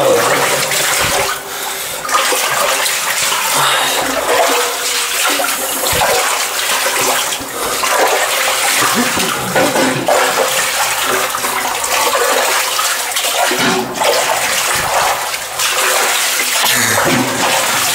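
Rubber boots wading through shallow muddy water, one splashing, sloshing step after another, the feet sinking into the soft mud.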